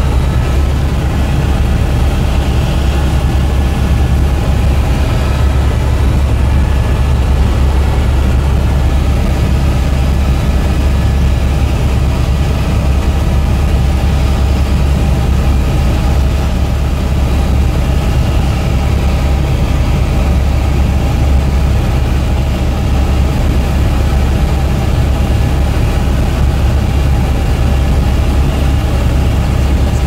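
Helicopter in cruising flight heard from inside the cabin: a loud, steady drone of engine and rotors, heaviest at the low end, with several steady tones above it.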